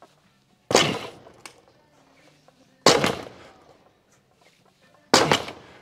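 Barbell loaded with black bumper plates set down on the gym floor three times, about two seconds apart, once per rep of a single-arm deadlift. Each landing is a loud, sudden thud that dies away over about half a second.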